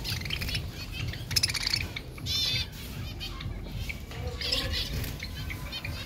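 A flock of budgerigars chirping and chattering in short, repeated chirps, busiest and loudest from about a second and a half to two and a half seconds in, over a steady low background rumble.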